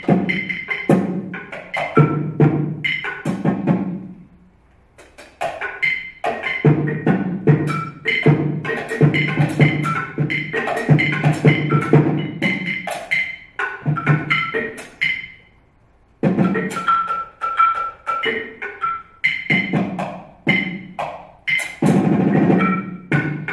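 Two percussionists playing a fast, interlocking rhythm with mallets on a tabletop set of small instruments, mostly a wood block and a small drum, the strikes ringing briefly. The playing breaks off twice for a moment, about four seconds in and just past the middle.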